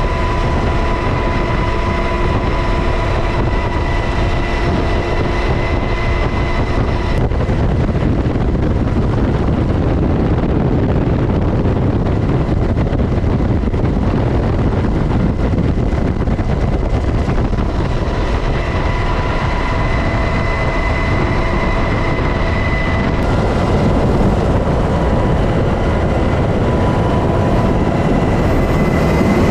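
UH-60 Black Hawk helicopter running: steady, loud rotor and twin-turboshaft engine noise with a high whine that fades in the middle and comes back.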